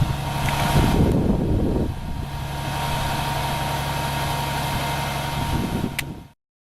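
Vehicle engine idling with a steady hum, louder for the first two seconds, then steady; a sharp click just before the sound cuts off abruptly about six seconds in.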